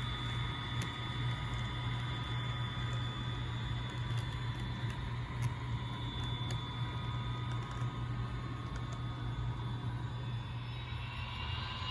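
HO scale model diesel locomotive running, its engine sound a steady low drone with a few faint clicks scattered through; a higher tone comes in near the end.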